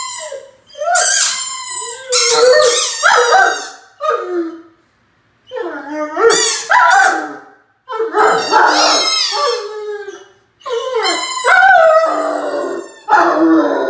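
A 9-month-old Great Dane howling at its own reflection: a series of about six long howls with short breaks between them, the pitch rising and falling within each.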